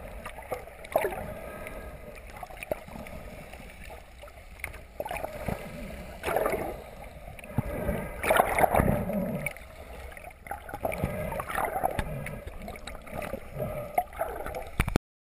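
Water rushing and gurgling around an underwater camera in uneven swells, with scattered clicks, the loudest swell about halfway through; it cuts off suddenly just before the end.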